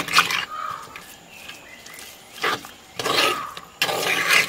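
Wooden spoon stirring raw chicken pieces and spices in a clay pot, scraping against the pot in a few separate strokes, the longest and loudest near the end.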